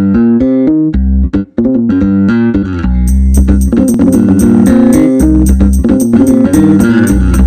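Background music: a melody of plucked notes, joined about three seconds in by a fast, steady ticking beat.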